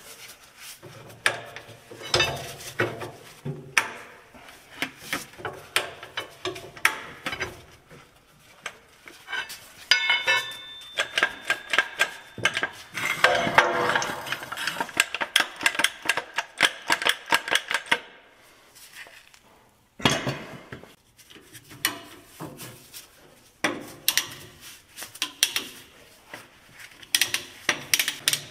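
Irregular metal clinks, knocks and clicks of hand tools and steel hardware as new bolts go into a truck's plow-mount plate, with a denser run of clicking and a brief ringing tone about ten seconds in.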